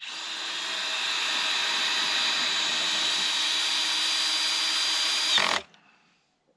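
Handheld electric power tool running steadily with a high motor whine, building up over the first second, then switched off about five and a half seconds in.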